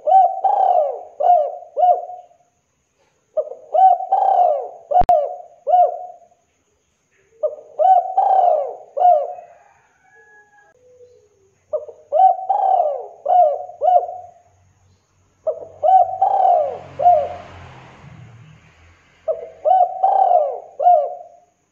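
Spotted dove cooing its song over and over: six phrases about four seconds apart, each a run of four or five clear coos.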